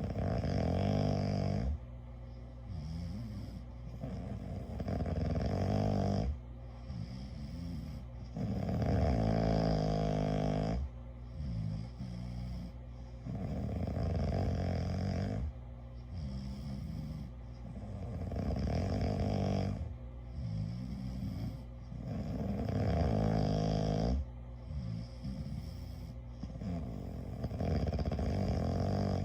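A sleeping person snoring steadily, with a loud snore about every four seconds, seven in all, and quieter breaths in between.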